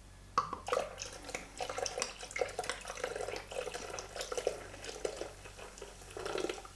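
Malt beer poured from a bottle into a Thermomix TM6 mixing bowl: an uneven gurgling run of liquid that starts about half a second in and stops just before the end.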